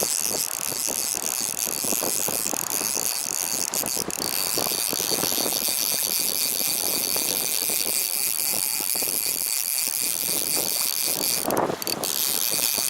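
Fly reel's click-pawl drag ratcheting in irregular runs of clicks as line is wound or pulled, over a steady rush of stream water.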